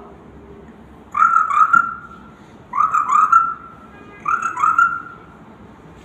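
A young woman's voice imitating a frog croaking: three calls about a second and a half apart, each two quick rising notes running into a held tone.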